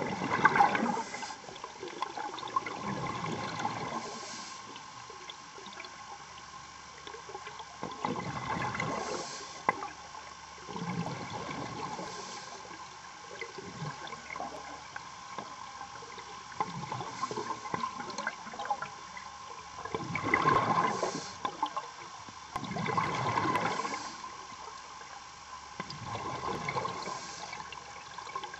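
Scuba diver's exhaled bubbles gurgling from the regulator in surges every few seconds, heard underwater, over a steady faint hum.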